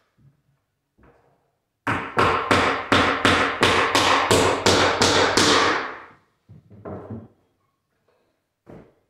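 A rapid run of about a dozen hard knocks, about three a second for some four seconds, dying away at the end, as a laminate stair tread is fastened down. A few softer knocks come before and after.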